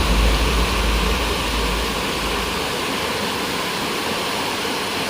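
Steady rushing water of a waterfall. Low background music fades out over the first two seconds.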